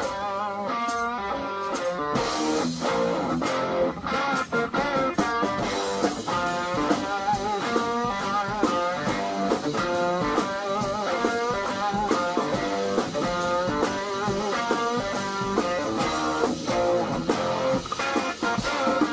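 Electric guitar playing blues-rock lead lines through an amplifier, with notes that waver in pitch from vibrato and bends.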